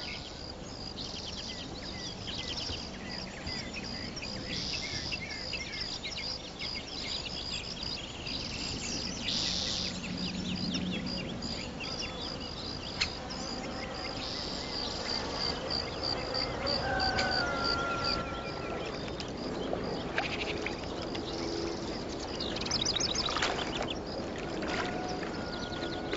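Countryside ambience: an insect chirps in a steady, even pulsing rhythm, and birds give short chirps now and then over it. There is a single sharp click about halfway through.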